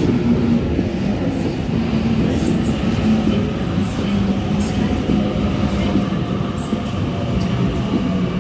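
Sydney Trains Waratah electric train arriving along the platform. It gives a steady running hum with several held tones from its motors, and short high clicks now and then.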